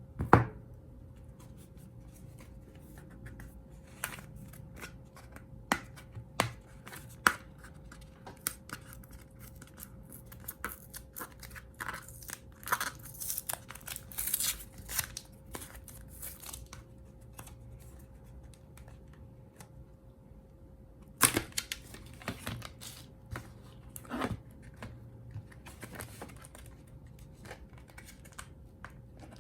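Small tools and phone parts clicking and tapping on a work surface during an iPhone 6S battery replacement. There is a sharp click about half a second in and another at about 21 s. In the middle stretch comes a run of rapid scraping and rustling. A faint steady hum runs underneath.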